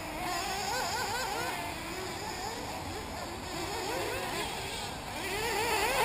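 Several 1/8-scale nitro RC buggy engines racing, a high-pitched buzz whose revs rise and fall quickly and overlap. It grows louder about five seconds in.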